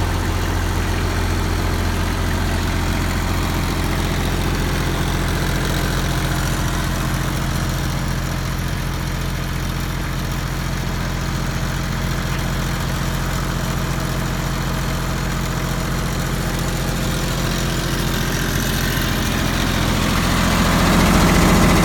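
The diesel engine of a Multiquip LT12 light tower generator running steadily at idle. It grows louder and fuller near the end.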